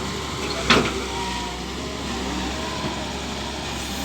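Engine of the machinery on a fiber-cable laying job running steadily, with one sharp knock under a second in.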